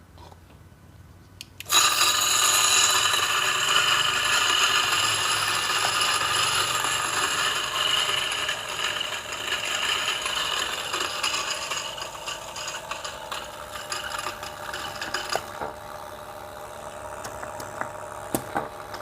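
DF64 espresso grinder's 64 mm flat steel burrs grinding a dose of coffee beans: the motor starts abruptly about two seconds in with a high whine over the crackle of beans. About fifteen seconds in the sound drops to a quieter run, with a few sharp clicks near the end.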